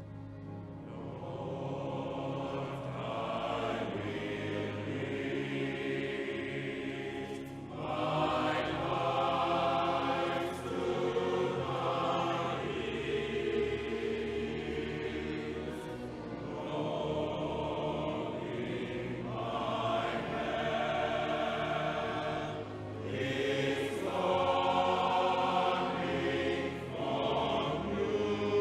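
Choir singing in long, held phrases.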